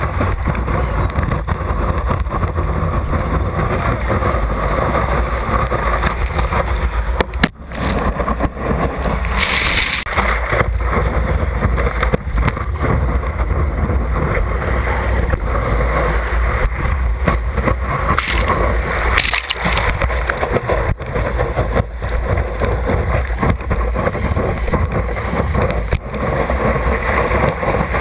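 Water rushing and wind buffeting a camera riding at the water's surface, a steady loud rumble with splashing. It drops out briefly about seven and a half seconds in.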